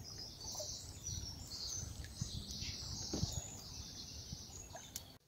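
Small birds singing continuously, high-pitched chirping, over a low background rumble of outdoor noise.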